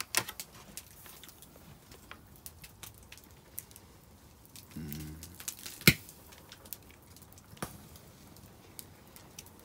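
Wood fire crackling quietly in a clay fireplace: scattered sharp ticks and pops, with one loud pop just before six seconds. A short hummed voice sound comes about five seconds in.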